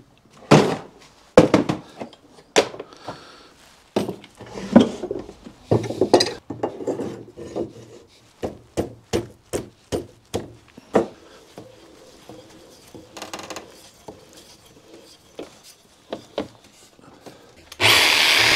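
Irregular sharp wooden knocks and clatter as boards and pieces of wood are handled on a workbench, thick for the first eleven seconds or so, then sparse. Near the end a Bosch jigsaw starts abruptly and runs steadily, cutting into an oak board.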